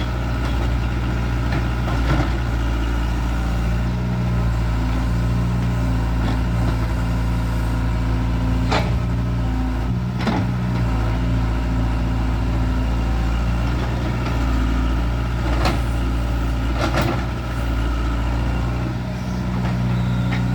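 Excavator's diesel engine running steadily, with a few sharp knocks scattered through, typical of the bucket striking while it digs.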